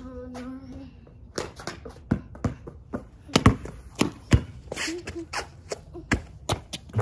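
Basketball bouncing on a concrete driveway, mixed with sneaker footsteps: a string of sharp, irregular thuds starting about a second in.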